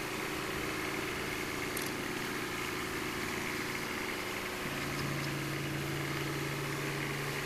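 Engine idling steadily on a parked Kubota B2601 compact tractor rigged with a Cyclone Rake lawn vacuum. The hum stays even, and its low note becomes steadier and stronger about two-thirds of the way through.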